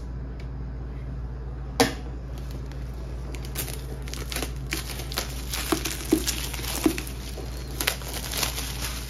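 Rustling and light clicks of packaging and a book being handled, with one sharper click about two seconds in.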